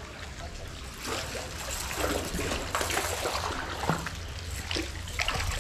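A hooked bass splashing at the water's surface as it is reeled in and lifted out, with water trickling and dripping, over a steady low hum.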